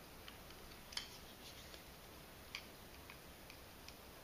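Faint, scattered clicks and ticks of a small screwdriver working screws out of the aluminium front of a bike light, with a sharper click about a second in and another past the middle.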